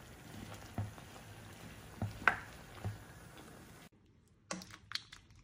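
A utensil stirring vegetables in a creamy sauce in a frying pan, with a few light clicks and taps against the pan over a soft steady hiss. The hiss cuts off suddenly about four seconds in, and two more clicks follow.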